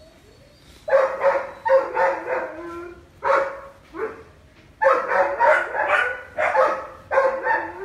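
Doberman barking repeatedly, about fifteen barks in quick bursts with short pauses between them.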